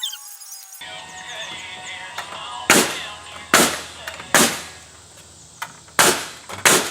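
Five sharp knocks of nails being driven into wooden framing, spaced unevenly about a second apart, over country music from a radio.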